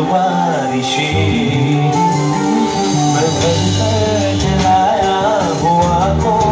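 Live band playing a song, with guitar, steady bass notes and a melodic line that bends up and down in pitch over them.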